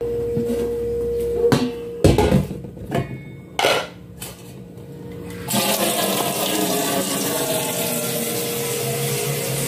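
A metal cooking pot and its lid knocking and clattering in a stainless steel sink a few times, then, from about halfway through, a steady rush of tap water running into the sink. A faint steady hum sits underneath throughout.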